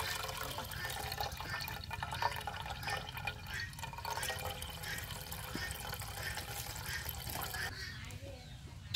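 Coconut milk poured through a bamboo strainer basket of grated coconut, trickling and splashing steadily into an aluminium pot.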